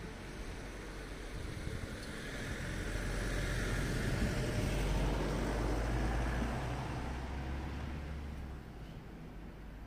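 A motor vehicle passing out of sight: its engine hum and tyre noise swell over a few seconds, peak in the middle and fade away.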